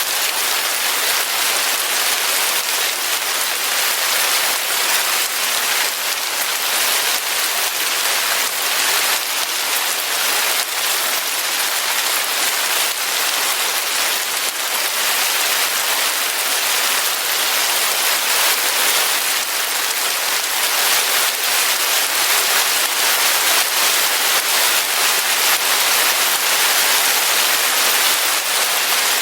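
Steady rain falling, a dense even hiss of many fine drops with no breaks or thunder.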